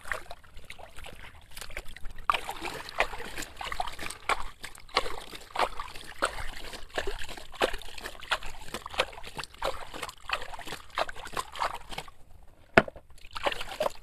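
Water sloshing, trickling and splashing as a toy truck is washed by hand, in a busy, irregular run of small splashes. A single sharp knock near the end.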